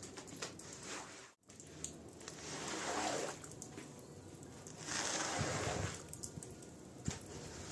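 Water sloshing and squishing on a wet rug being washed, in two swells, the second one louder. It cuts out suddenly for a moment early on.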